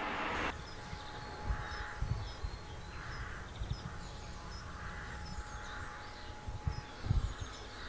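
Birds calling in the early morning: several harsh calls roughly a second or so apart and scattered small high chirps, over a faint steady tone. A few low thumps come near the end.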